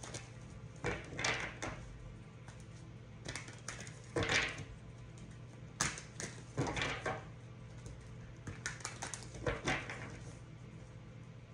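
Tarot cards being shuffled and handled: scattered short rustles and taps at irregular intervals, over a steady low hum.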